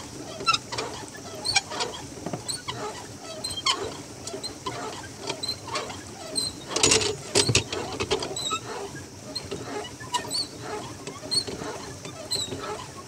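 Squeaking and clicking of a swan pedal boat's pedal mechanism as it is pedalled, in a rough rhythm about once a second, with a louder cluster of knocks about seven seconds in.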